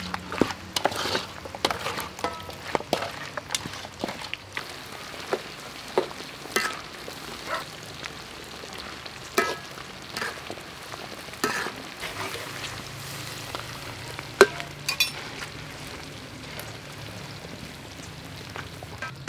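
Thick sauce bubbling hard in a pan over a wood fire, with irregular wet pops and plops as the bubbles burst. Near the start there is also the squelch of chicken wings being mixed by hand in wet batter in a metal bowl.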